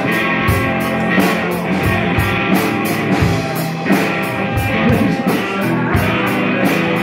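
Instrumental passage of a rock song: guitar over a drum kit keeping a steady beat, with no singing.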